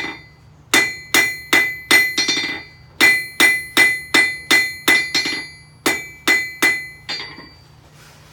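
Blacksmith's hammer striking an anvil in quick runs of about two and a half blows a second, each blow leaving a clear metallic ring. The blows come in three runs with short pauses, and a last lighter blow falls near the end.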